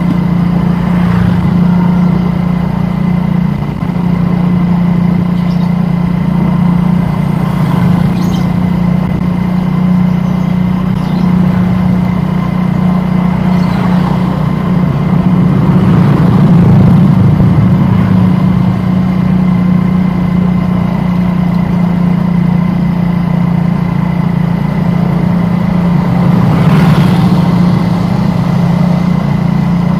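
A vehicle engine running steadily at an even speed, with a brief brighter swell of noise about 27 seconds in.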